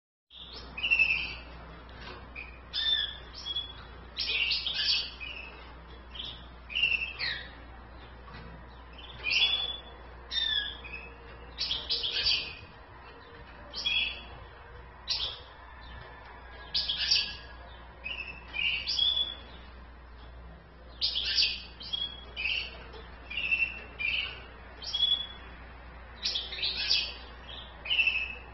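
Caged male European goldfinch and female canary chirping and twittering: short high calls and brief warbled phrases, a burst every second or so.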